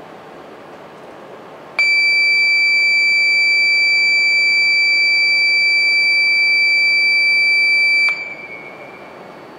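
Shinkansen platform departure buzzer: one loud, continuous high-pitched beep of about six seconds that starts about two seconds in and cuts off sharply, signalling that the train is about to leave.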